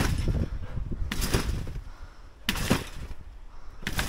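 A rider bouncing on a trampoline with a trick scooter: four landings, about one and a quarter seconds apart, each a sharp impact on the mat.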